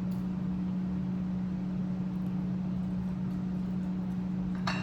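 A steady low hum with a faint hiss, with a brief sharp click near the end.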